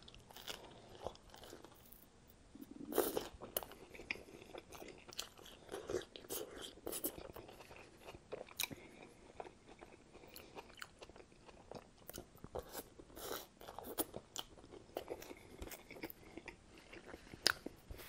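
A person chewing a mouthful of toasted tomato sandwich: repeated crunches of toasted bread between quieter chewing, with a stronger crunch about three seconds in.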